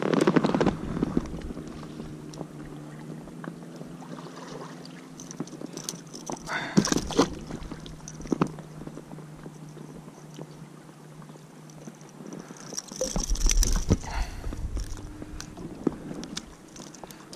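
Close handling noise as forceps work a hook out of a pike's mouth: scattered small metal clicks, scrapes and rustling, with a louder bump and low rumble about thirteen seconds in.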